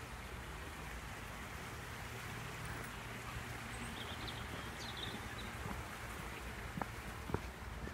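Brook flowing with a steady rushing babble, with a few faint bird chirps in the middle and a couple of sharp clicks near the end.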